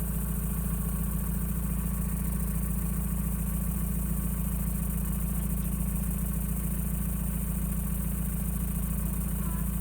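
Vehicle engine idling steadily with a low, even rumble.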